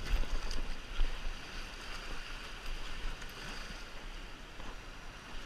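Wind buffeting the microphone over moving water, with two knocks, one right at the start and another about a second later.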